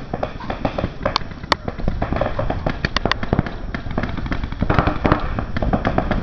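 Paintball markers firing in rapid, irregular strings of sharp pops.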